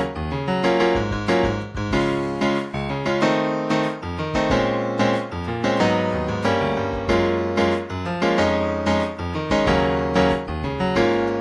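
Keyboard playing a pop song's keyboard part: struck chords over low bass notes, each note ringing and fading, in a steady rhythm.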